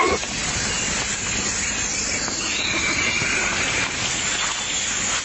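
Steady hissing noise, with a faint drawn-out high call about halfway through.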